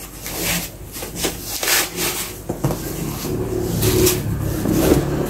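Cloth dust bag rustling and rubbing in a series of strokes as hands open it and slide it off a handbag.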